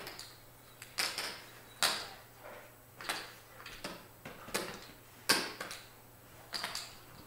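Clay poker chips clacking as players handle and stack them: about seven sharp clacks at irregular intervals.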